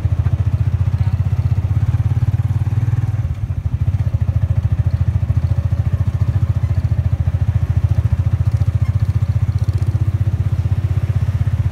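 Small motorcycle engine running steadily close by, as heard riding on board, with a short dip in its sound about three seconds in.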